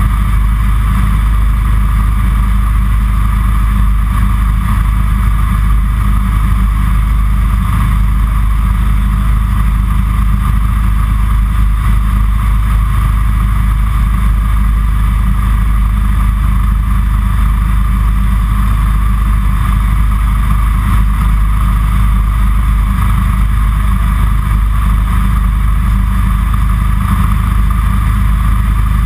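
Kitfox Series 5 light aircraft's engine and propeller running steadily in flight, heard from inside the cockpit.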